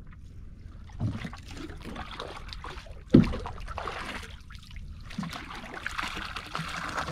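Water trickling and sloshing against a small wooden outrigger boat, with a low rumble underneath. There is a knock on the wooden hull about a second in and a louder, sharper one about three seconds in.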